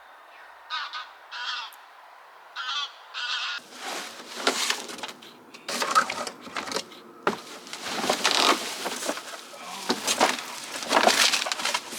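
A cardboard bike box being opened: a few short raspy squeaks in the first few seconds, then from about four seconds in a busy run of loud ripping, scraping and rustling of cardboard and packaging.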